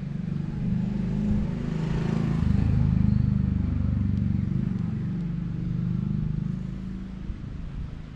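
An orange-and-white cat purring close to the microphone: a steady low, rapidly pulsing rumble that swells about three seconds in and eases off near the end.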